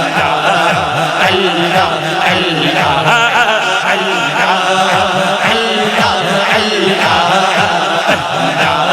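Devotional zikr chanting between naat verses: voices repeating 'Allah' over a steady low drone, with an even low pulse of about three beats a second.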